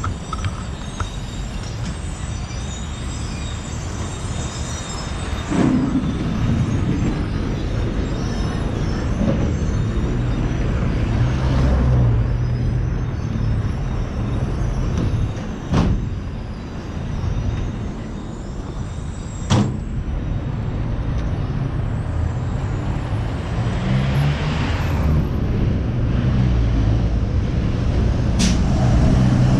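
Street traffic: vehicle engines, buses among them, running and passing in a steady low rumble that swells and eases, with a few sharp clicks.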